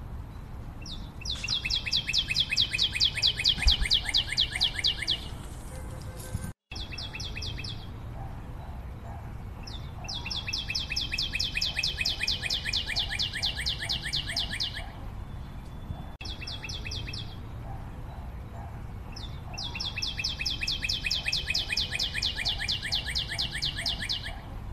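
A bird trilling: a very rapid, high-pitched trill that falls slightly in pitch, repeated three times for about four seconds each, with short bursts of the same trill in between.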